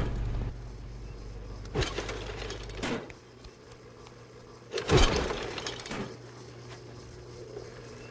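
A series of sharp impacts and crashes, about five in all, the loudest about five seconds in, over a low steady hum that cuts out about three seconds in.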